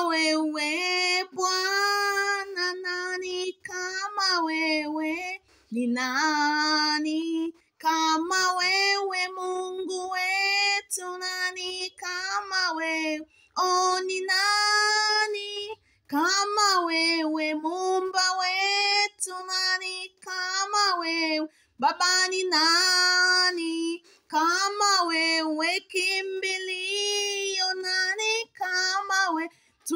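A woman singing a Swahili worship song solo with no accompaniment, her phrases broken by short pauses.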